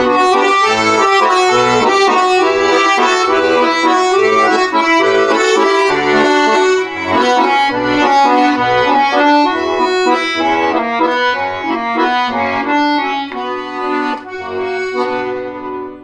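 Button accordion playing a folk-style melody over chords, the instrumental close of a song, thinning out and dying away in the last second or two.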